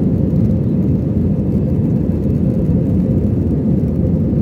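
Steady low rumble of a jet airliner's engines and its rolling on the ground, heard inside the passenger cabin.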